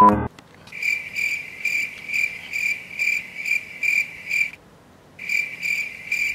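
A cricket chirping in an even rhythm, about two chirps a second, with a brief break about four and a half seconds in.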